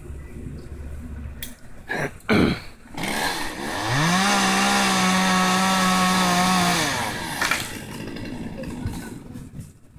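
A two-stroke chainsaw is revved up to full throttle, held there for about three seconds, then let back down to idle. About two seconds in there is a brief loud sound that falls quickly in pitch.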